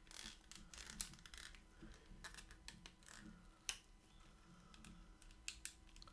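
Faint scattered clicks and scrapes of hands working small parts inside an opened laptop, with a sharper click about three and a half seconds in.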